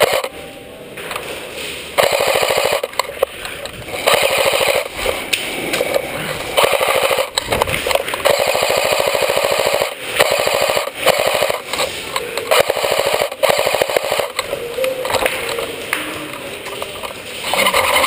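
Airsoft electric guns firing in long full-auto bursts: a fast, even mechanical rattle of the gearboxes cycling and BBs going out. It is quieter in lulls near the start and again a few seconds before the end.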